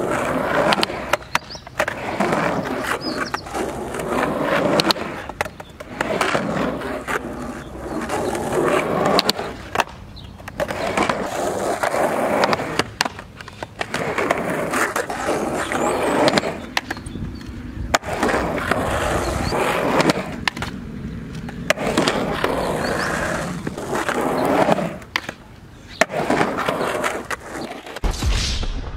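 Skateboard rolling on concrete and asphalt, with repeated sharp clacks and knocks of the board against the ramp and ground as tricks are tried on a concrete quarter pipe. Near the end the sound turns muffled and low.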